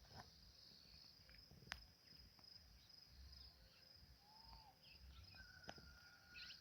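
Faint crickets chirring in a steady, high, pulsing trill, with a few soft clicks and a short whistled note near the end.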